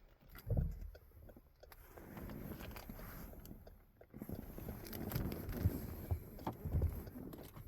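Rustling and scraping handling noise with scattered clicks, and a thump about half a second in.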